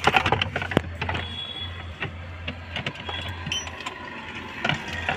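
Irregular clicks and knocks of plastic dashboard trim, console frame and tools being handled during dashboard refitting, densest in the first second, over a steady low hum, with a short squeak about a second in.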